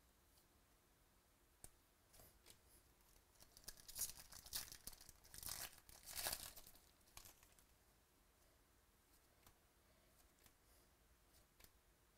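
Foil wrapper of a baseball card pack being torn open and crinkled, in a few seconds of crackling from about three and a half seconds in, loudest near four and six seconds. A few faint clicks of cards being handled come before and after.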